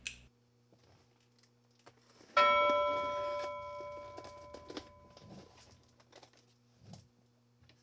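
A bell chime from a subscribe-button animation, struck once about two and a half seconds in and fading out over a couple of seconds. Faint clicks and rustles of handling come before and after it.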